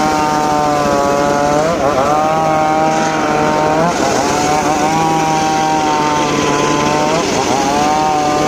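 Two-stroke chainsaw running at high revs while cutting teak wood. Its pitch dips briefly and recovers three times, about two, four and seven seconds in, as the engine is loaded by the cut.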